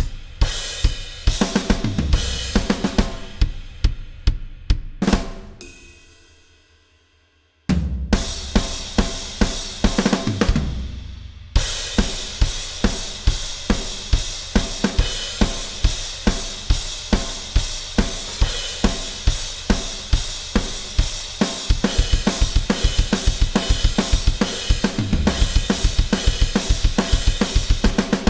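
A drum kit played on its own, without the backing song: kick, snare, hi-hat and cymbals in a rock beat. About five seconds in the playing stops and the cymbals ring out to near silence, then the kit comes back in with a crash about eight seconds in and settles into a busier, steady chorus groove.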